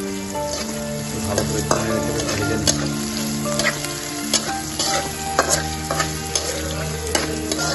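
A flat metal spatula stirs and scrapes dried chillies, whole spices and green peas around an iron kadai while they sizzle in hot oil. The spatula makes irregular sharp scrapes and clicks against the pan over a steady frying hiss.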